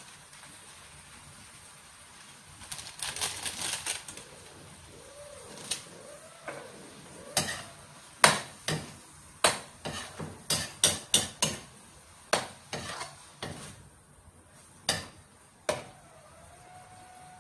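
Metal spatula knocking and scraping against an aluminium wok while stirring sautéed corned beef, giving a dozen or more sharp, uneven clinks in the second half. Earlier, about three seconds in, there is a short rustle.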